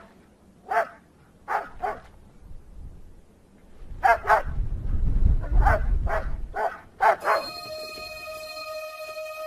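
Tethered sled dog barking at a polar bear: short sharp barks, singly and in quick pairs, with a low rumble under the middle stretch. Background music comes in near the end.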